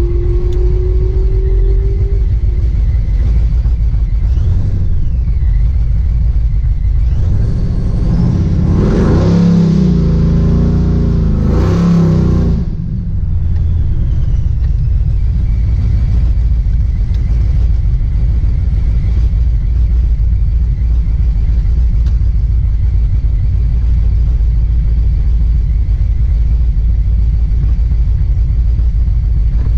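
Supercharged drag car engine idling with a low, choppy beat, heard from inside the cabin, and blipped up in revs twice about nine and twelve seconds in.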